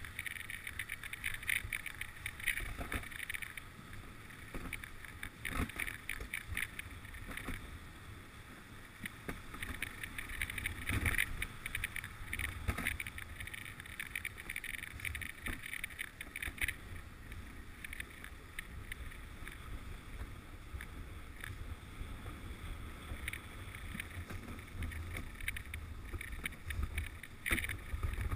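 Dog sled runners sliding over snow with a steady scraping hiss as the team pulls the sled along, over a low rumble of wind on the microphone.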